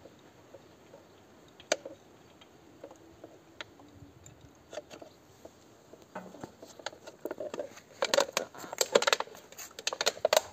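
Handling noise from hands working at the drain plug and a thin cut-open plastic catch bottle: a few isolated clicks at first, then dense crackling and tapping from about six seconds in, busiest near the end.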